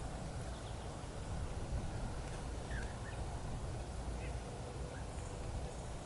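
Steady low rumble of outdoor background noise, with a few faint, short bird notes around the middle.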